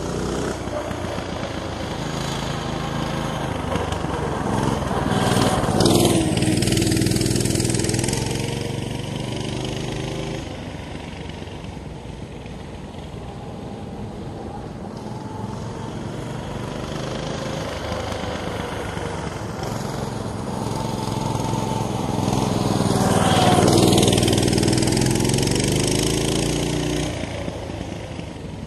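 Coleman BT200X mini bike's 6.5 hp single-cylinder engine running under throttle as the bike rides around, with its throttle stop screw cut off. It grows loud as the bike passes close by twice, about six seconds in and again near the end, and fades between passes.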